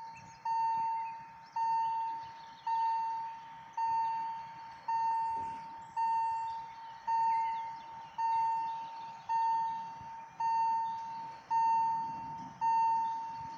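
Railway level-crossing warning bell striking about once a second, each stroke a clear ringing tone that dies away, sounding as a train approaches.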